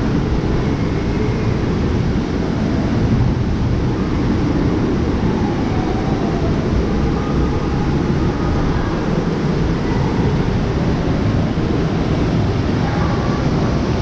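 Steady low roar of rushing water echoing inside the man-made volcano, muffled through a waterproof camera housing, with faint distant voices.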